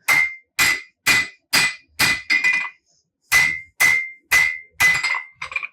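Hand hammer striking hot Damascus steel on an anvil while drawing out a knife's tang: about ten blows, roughly two a second, with a pause of about a second midway. Each blow rings briefly at a high pitch.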